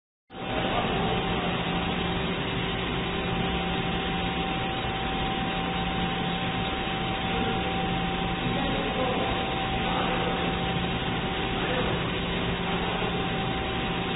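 Doosan Puma SMX3100L CNC lathe running: a steady machine hum with a few constant tones, starting abruptly just after the start.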